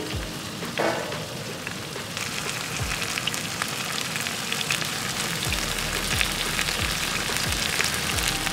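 Chicken breasts sizzling and spitting as they fry in oil in a large pan over a wood fire; the sizzle grows denser about two seconds in.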